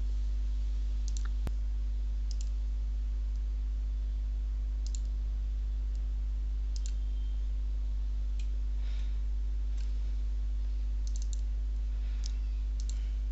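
Computer mouse clicking: about ten scattered single clicks over a steady low hum.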